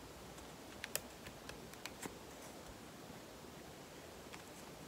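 Faint handling sounds of a rubber band being wound around knitted fabric gathered over a ping pong ball: soft rustling with a few light clicks, most of them in the first two seconds.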